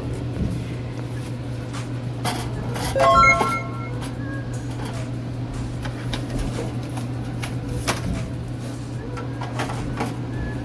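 Drink cans and bottles being handled and set into a vending machine's shelves: scattered knocks and clicks, with a louder rattle of ringing clinks about three seconds in, over a steady low hum.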